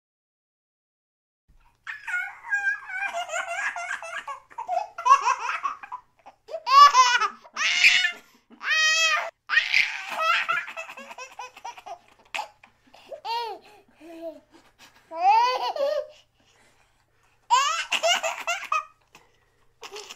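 A baby laughing and giggling in repeated bouts, starting about two seconds in.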